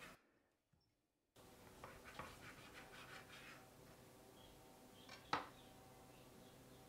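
Faint scraping of a kitchen knife cutting through thick slices of smoked bacon on a wooden cutting board, then one sharp knock about five seconds in as the knife is laid down on the board.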